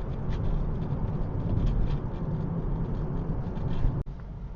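Steady road and engine noise inside a moving car, a low rumble with tyre hiss. About four seconds in it drops suddenly with a click to a quieter level.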